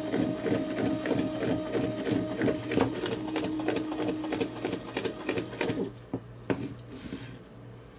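Stepper motor driving the worm gear of a 3D-printed slew drive. It makes a steady whine with a rapid, even train of clicks from the gearing and plastic BB bearings, and stops about six seconds in, leaving a few scattered clicks.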